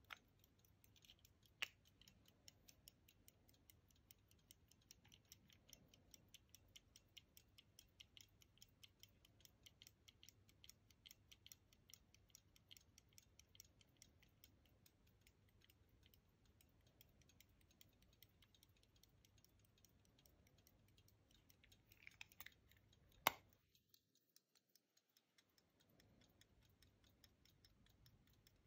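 Antique verge fusee pocket watch (a 1735 pair-case watch by Abraham Blanchard, London) ticking faintly in a quick, even beat. A sharp click comes about a second and a half in, and a louder sharp click near the end, after a brief rustle.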